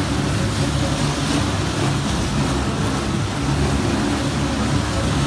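Jet-ski amusement ride running: a steady low mechanical rumble from the ride's drive, with water churning and spraying as the boat-shaped cars cut through the pool.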